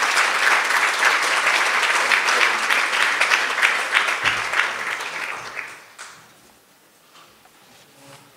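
Audience applauding, a dense patter of many hands clapping that dies away about six seconds in, welcoming a speaker to the podium.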